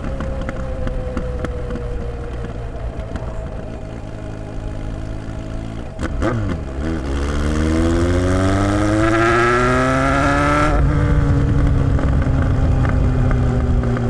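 Kawasaki Z1000's inline-four engine through a MIVV Double Gun slip-on exhaust, heard while riding. The note sinks slowly as the bike rolls off. After a short break about six seconds in, the engine is opened up and its pitch climbs strongly for about four seconds, then drops back and runs on steadily at a lower pitch, as on an upshift.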